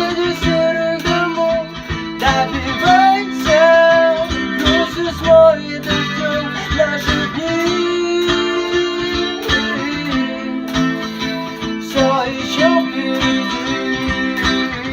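Instrumental break of a live band: guitars strumming chords with a melody line playing over them.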